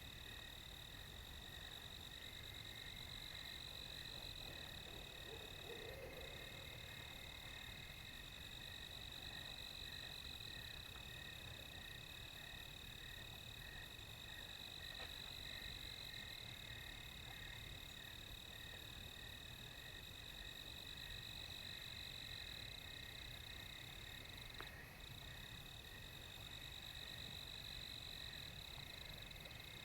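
Faint, steady night chorus of calling meadow creatures: several continuous high trills layered at different pitches, one of them pulsing in a regular rhythm, over a low background rumble.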